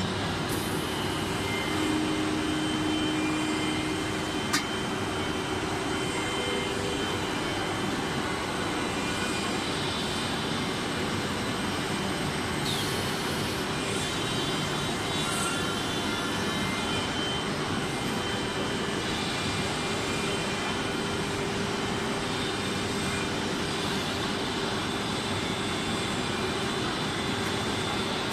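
An automatic laminating machine running with a steady mechanical hum and whir over the hall's background noise, with one sharp click about four and a half seconds in.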